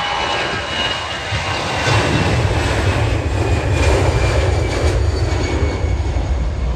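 Airbus A320 jet airliner's engines at takeoff thrust as it rolls past and lifts off. A deep rumble swells about one and a half seconds in and holds, with a thin high whine that fades toward the end.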